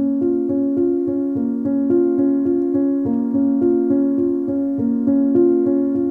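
Background keyboard music: a quick, even run of repeating notes.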